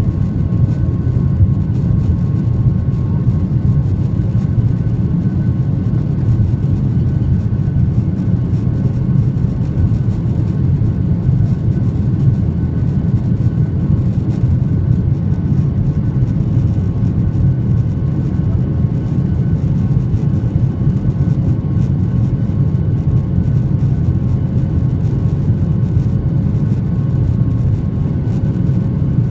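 Steady roar of a jet airliner's engines and rushing air heard inside the passenger cabin while climbing out after takeoff. A deep, even rumble carries a few faint steady engine tones above it.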